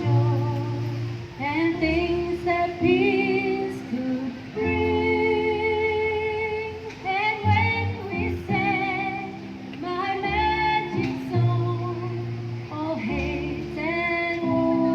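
A song: a female voice singing long held notes with a light wavering vibrato over instrumental accompaniment with sustained bass notes.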